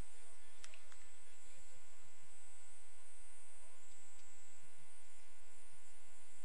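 Steady electrical mains hum, a stack of even tones, with a faint click a little over half a second in.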